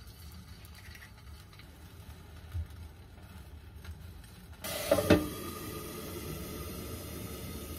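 An egg frying in a nonstick frying pan, sizzling quietly. A little past halfway the sizzling suddenly gets louder and a glass lid clatters onto the pan, after which a steady sizzle continues under the lid.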